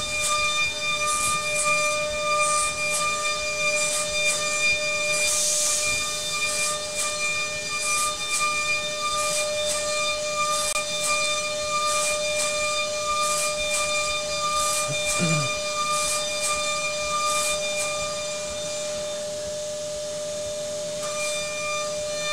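DATRON M8 Cube milling spindle roughing a metal block with a long insert cutting tool: a steady high whine of several tones over a hiss of coolant spray and flying chips. A brief falling tone comes about two-thirds of the way through.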